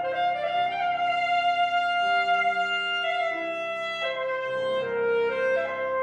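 Alto saxophone playing a slow, lyrical melody over piano accompaniment: one long held note for about three seconds, then moving down to lower notes.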